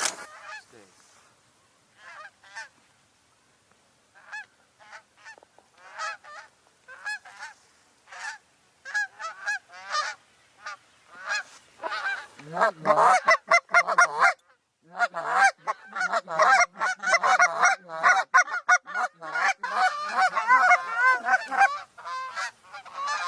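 Canada goose honking: scattered single honks at first, building to many loud overlapping honks about halfway through, broken once by a short silence.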